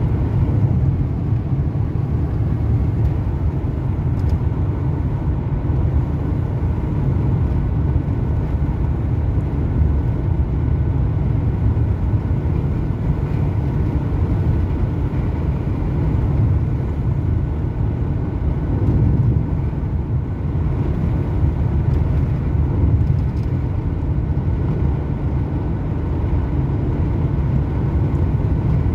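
Cabin noise of a VW Transporter T6 with the 102 hp 2.0 TDI four-cylinder diesel, cruising on cruise control at about 80 km/h in fifth gear, just under 2,000 rpm. It is a steady, even low drone with no change in pitch or level.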